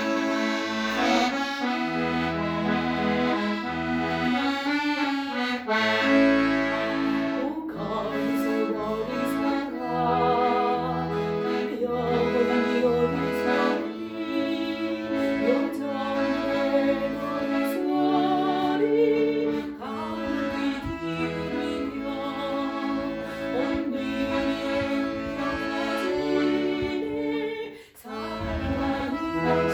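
Instrumental introduction to a yodel song: an accordion plays the melody over a steady, rhythmic bass accompaniment. The music drops out briefly near the end.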